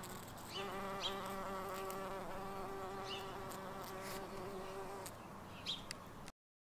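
Early bumblebee (Bombus pratorum) queen buzzing in flight close by: a steady wingbeat hum that starts about half a second in and stops after about four and a half seconds.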